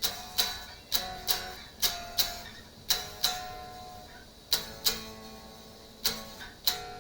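Electric guitar (a budget HSS Strat) with chords struck in quick pairs about once a second, each ringing out briefly with a sharp, clicky attack. The chords are played to check the slight fret buzz the owner hears when power-chording the low strings, mostly higher up the neck.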